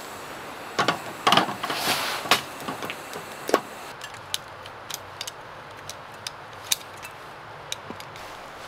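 A series of light clicks and knocks from objects being handled, with a cluster of louder knocks in the first few seconds and then scattered small ticks.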